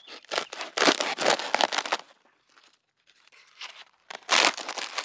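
A dried luffa gourd being cut and split open with a knife: its dry, papery skin and fibrous insides crackle and tear. There are two bouts, one of about a second and a half starting just after the beginning, and a shorter one near the end.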